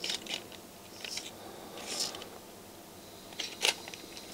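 Plastic MiniDisc cartridge scraping and clicking in the slot of a MiniDisc deck's loading mechanism as it is handled and pulled out: a few short scrapes and clicks.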